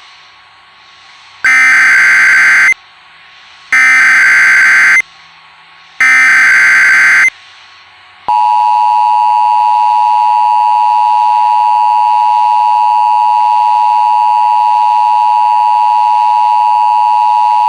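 Emergency Alert System tones: three identical screeching SAME header data bursts, each about a second and a half long with a short gap between. About eight seconds in comes the steady two-tone EAS attention signal, held for about ten seconds. Together they announce a tornado warning.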